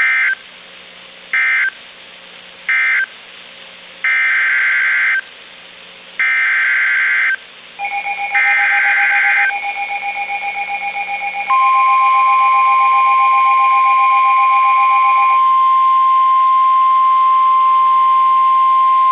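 NOAA Weather Radio EAS signals. Three short end-of-message data bursts mark the close of one warning, then three longer SAME header data bursts open the next. About eleven seconds in, the steady 1050 Hz weather radio warning alarm tone begins and holds. A second, pulsing electronic alarm beep comes in about eight seconds in and stops about fifteen seconds in, overlapping the start of the tone.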